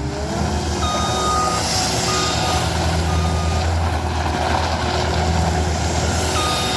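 Caterpillar 236D skid steer loader's diesel engine running at raised revs, with its backup alarm beeping about once a second as it reverses.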